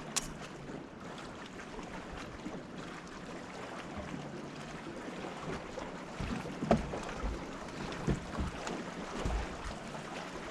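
Steady wind and water noise around a small fishing boat, with a sharp click just after the start and a handful of dull knocks and thumps in the second half.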